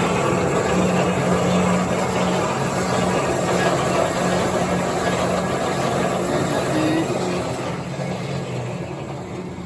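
Marvel Series 8 MkII vertical band saw running on its variable frequency drive: a steady mechanical hum over a wash of noise. The sound drops away over the last couple of seconds.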